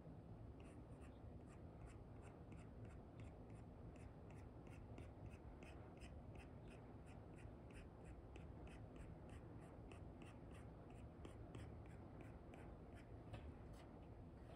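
Apple Pencil 2 with an Elecom nib scratching on an iPad's paper-like screen film in short, quick strokes, about three a second, faint. The strokes stop about a second before the end.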